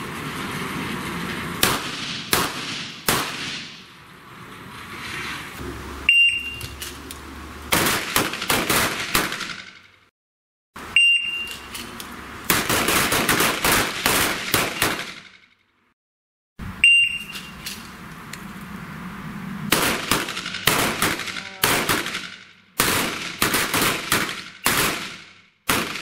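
Pistols firing in rapid strings of shots, several shooters at once, with a short high beep before each string: the start signal. There are three beeps, each followed by a burst of overlapping shots, and a few single shots about two seconds in.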